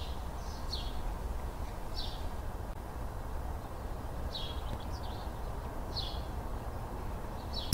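Outdoor ambience of birds chirping, with short high chirps every second or so over a steady low background hiss.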